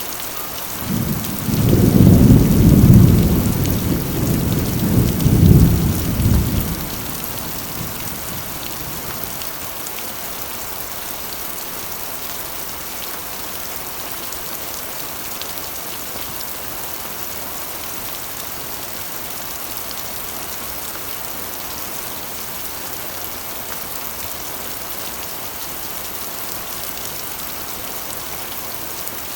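Rain falling steadily on a corrugated iron roof, with a roll of thunder about a second in that rumbles low for some six seconds, swelling twice, before the rain alone goes on.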